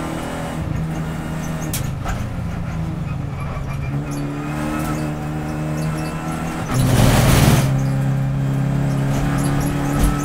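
Renault Clio Cup race car's four-cylinder engine heard from inside the cabin, pulling at mid-to-high revs and changing between third and fourth gear. About seven seconds in, a loud rough rush of noise lasts under a second over the engine.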